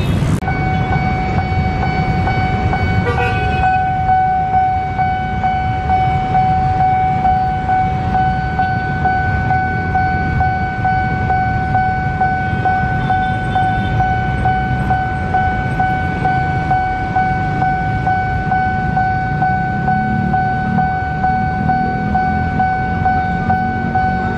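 Railway level-crossing warning alarm sounding a steady high electronic tone, with the rumble of waiting road traffic beneath.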